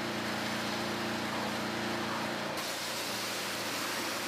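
Steady hiss of a high-pressure water hose spraying the underside of an aircraft, over a steady low hum. About two-thirds of the way through, the hum fades and the hiss turns duller.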